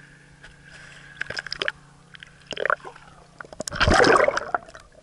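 Water splashing and sloshing as a hand lowers a small bass back into the lake, with a few light splashes first and the loudest, muffled gush a little under four seconds in as the hand, fish and camera go under the surface.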